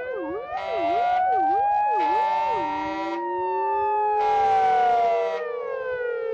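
Several fire engines' sirens sounding together: a fast yelping siren and slow rising-and-falling wails overlapping. Steady blaring tones cut in three times, each about a second long.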